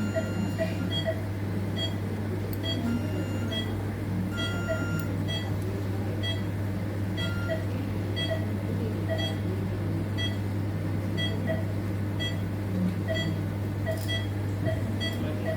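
Operating-theatre patient monitor beeping steadily, about two short beeps a second, the pulse-oximeter tone that sounds with each heartbeat, over a steady low hum.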